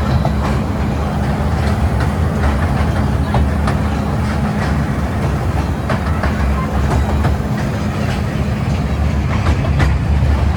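Miniature toy train running on its track: a steady low rumble with scattered clicks of the wheels over the rails.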